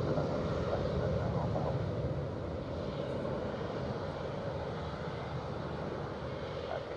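Jet engines of an Airbus A350-900 taxiing: a steady low rumble that eases a little after about two seconds.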